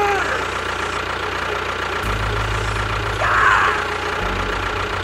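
Tractor engine idling with a low, steady chug that gets louder about two seconds in and again near four seconds.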